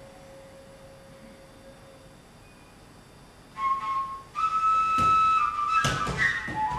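After about three and a half seconds of near-quiet hum, a high flute-like note sounds. It steps up in pitch and is held, and a few sharp knocks come in the last two seconds.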